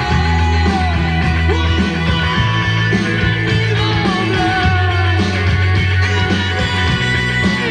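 A rock song with a singing voice, played through a Pioneer SX-780 stereo receiver.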